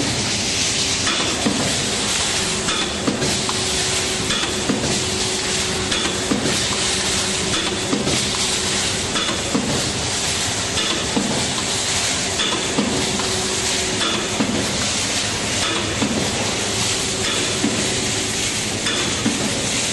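YFS-1100A aluminium foil tray press running, striking a stroke about every one and a half seconds over a steady hiss of machinery.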